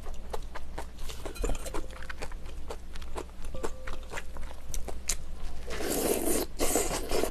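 Close-miked eating sounds of someone eating tteokguk (Korean rice cake soup): small wet chewing and lip-smacking clicks, then a loud slurp of broth from the spoon near the end.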